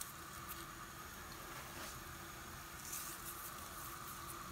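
A pot of fish soup at a steady boil, bubbling with a soft hiss, with a few faint patters as rock salt is sprinkled into it.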